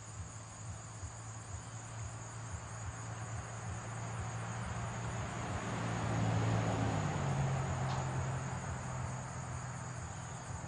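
Summer insects droning steadily at a high pitch over a low hum, with a rushing noise that swells to a peak about six seconds in and then fades.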